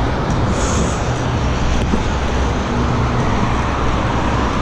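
Steady road traffic noise from cars passing on a busy multi-lane street, heard from a bicycle riding alongside.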